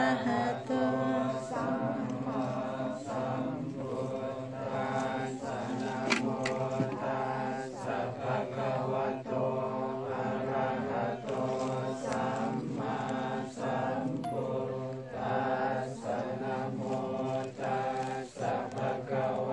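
A group of Buddhist monks chanting Pali verses in unison, a steady unbroken recitation that moves along in even syllables.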